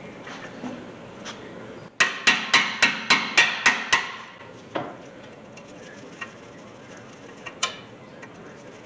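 Hammer striking a hand impact screwdriver to break loose stuck Phillips brake-rotor screws: a quick run of about eight sharp metallic blows, about four a second. One more single strike follows, then a few light clicks near the end.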